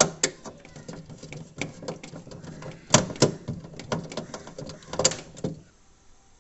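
Irregular clicks and knocks of fridge parts being handled and fitted by hand, with a few sharper knocks about 3 and 5 seconds in. They stop shortly before the end.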